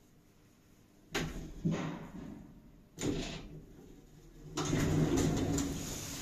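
Lift car arriving at a floor. Two sharp clunks come about a second in, and another about three seconds in. Near the end comes a longer, louder rumbling slide, which is the automatic stainless steel sliding doors opening.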